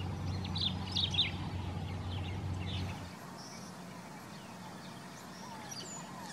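White-rumped tanagers calling: a few quick, sharp falling chirps in the first second and a half, then fainter scattered chirps. A low steady hum underneath stops about three seconds in.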